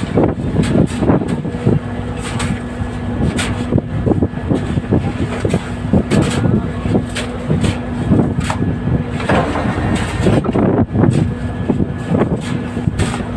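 A fishing vessel's engine running with a steady hum, under many irregular knocks and clatters of work on deck.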